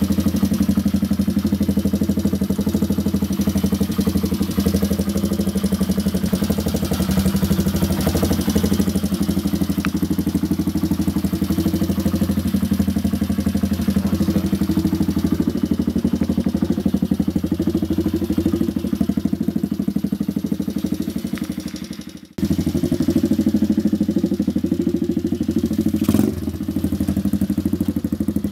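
Kurz RT1 Enduro pit bike's small single-cylinder engine idling steadily on choke after a cold start, with a brief break about 22 seconds in.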